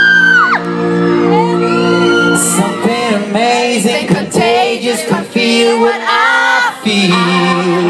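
Live pop music in a large hall: sustained chords under sung vocal lines that slide and bend in pitch, with whoops and cheering from the crowd.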